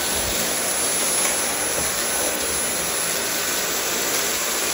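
Dyson V8 cordless stick vacuum running on max power: a steady rushing noise with a thin high whine from the motor.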